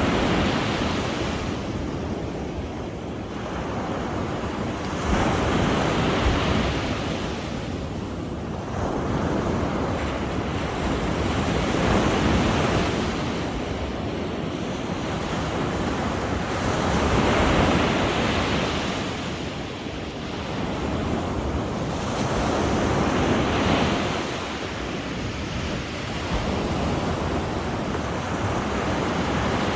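Sea waves breaking and washing ashore, swelling and falling back about every five to six seconds.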